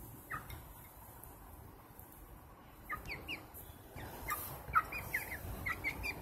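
Hens making short, soft calls while feeding: a couple of quick chirps about three seconds in, then a run of them near the end.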